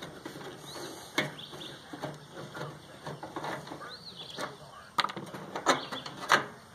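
Sharp clanks and clicks of metal parts and tools as a microwave oven is taken apart: one about a second in and three loud ones close together in the last two seconds. Short high chirps and squeaks come in between.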